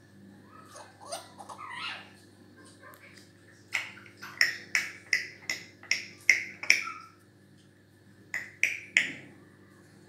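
African grey parrot calling: a few softer, varied sounds in the first two seconds, then a quick run of about eight short, sharp calls, a pause, and three more near the end.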